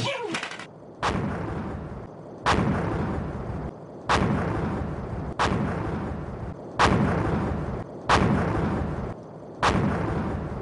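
A run of seven heavy, gunshot-like booms, evenly spaced about a second and a half apart, each ringing and dying away before the next.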